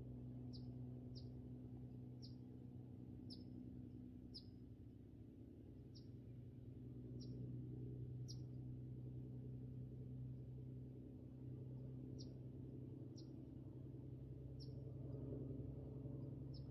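A small bird giving short, sharp chip notes, each dropping in pitch, repeated about once a second with a brief pause midway. The calls are faint over a steady low hum.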